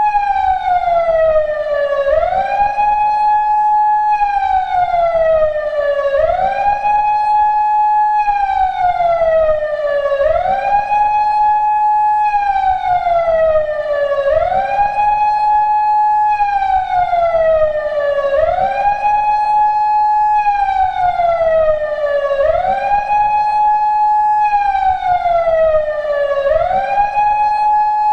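PATLITE SAP-50 electronic siren amplifier sounding a repeating wail through its speaker. Each cycle the tone jumps up quickly, holds briefly, then falls slowly, about once every two seconds.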